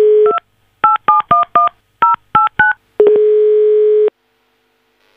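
Telephone line audio: the dial tone stops, eight touch-tone (DTMF) digits are dialed in quick succession, then a single ringing tone of about a second sounds as the call goes through.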